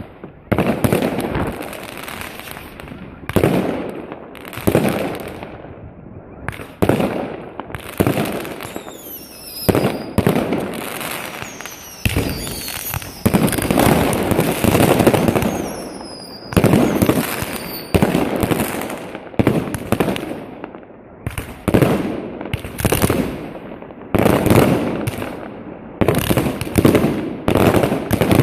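Consumer firework battery (cake) firing shot after shot, a bang roughly every second or so with each burst echoing away, and a few falling whistles among them.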